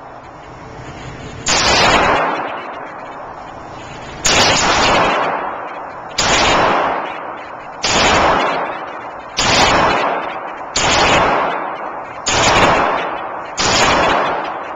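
Pistol fired eight times at a slow, even pace, each shot echoing and fading out over a second or more in the hard-walled indoor range.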